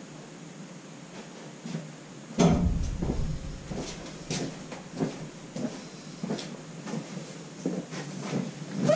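Sports cards and their box being handled while sorting: a heavy bump about two and a half seconds in, then a run of light clicks and rustles.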